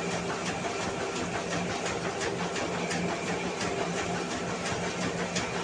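Mini rice mill running steadily: a constant hum under a rushing, rattling noise from the huller.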